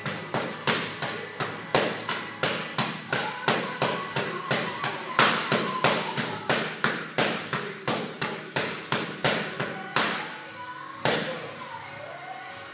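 Punches landing on boxing focus mitts in a fast, even rhythm of sharp smacks, about three a second, stopping about ten seconds in with one last hit a second later.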